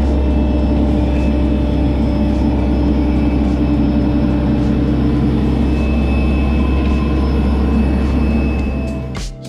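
Heavy engine running steadily, a loud, deep drone that holds level and fades out near the end as music begins.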